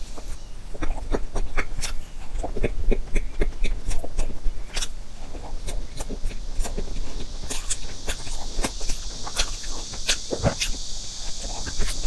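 Close-miked chewing and mouth sounds of someone eating soft layered cake: a steady run of small wet clicks and smacks over a steady hiss that grows louder about halfway through.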